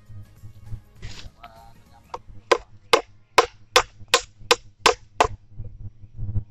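Small hatchet chopping into wood, a run of about ten sharp blows at roughly three a second, starting about two seconds in.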